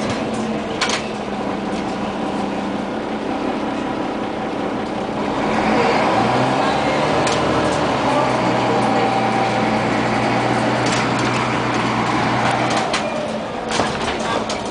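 Scania CN94UA OmniCity city bus heard from inside the passenger cabin while driving. The engine and drivetrain note rises about five seconds in as it pulls harder, then eases off near the end, with occasional rattles from the bus body and fittings.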